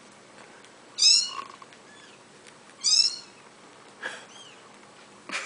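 Bottle-fed kitten mewing: two short high-pitched cries about two seconds apart, with a fainter one near the end.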